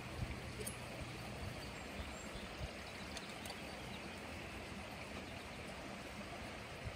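Steady outdoor background hiss with a low rumble under it, and a few faint clicks, mostly near the start.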